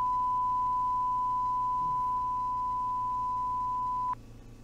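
Steady high-pitched electronic tone at a single unchanging pitch, like a test-tone beep, cutting off abruptly about four seconds in.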